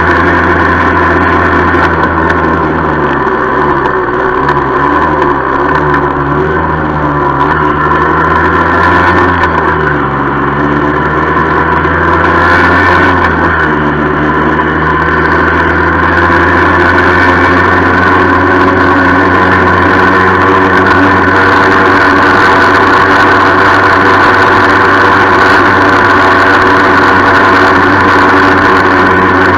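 Yamaha FS-1 moped's 49 cc two-stroke single-cylinder engine running under way, with a rattling noise. Its pitch falls and climbs again in the first half and then holds steady.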